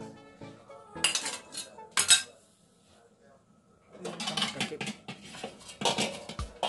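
A metal spoon and aluminium cookware clanking together: sharp clinks about one and two seconds in, the loudest near two seconds, then a busy run of clattering in the second half.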